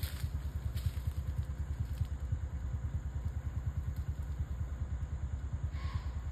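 A small engine idling: a low, steady rumble with a rapid even pulse of about eight to ten beats a second. A brief higher-pitched sound comes near the end.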